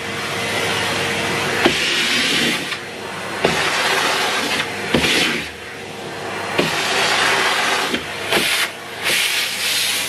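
Numatic Henry Turbo cylinder vacuum cleaner running, its suction hissing and rising and falling in loudness as the tool is worked over carpeted stairs. About half a dozen sharp knocks punctuate it.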